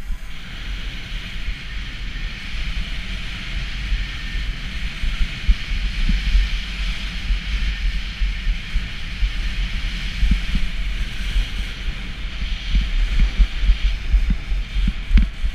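Skis running over packed snow with a steady hiss and scrape, under heavy wind rumble on the action camera's microphone. The rumble gusts harder in the last few seconds.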